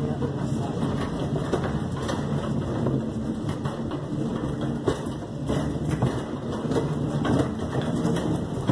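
Footsteps on a wooden floor and knocks from handling the phone, as the person filming walks quickly, over a steady low mechanical hum.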